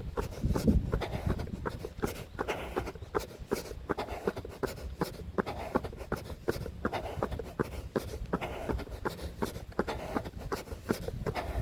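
A runner's footsteps striking a paved path at a steady running pace, about three steps a second, with the rustle of the phone carried along.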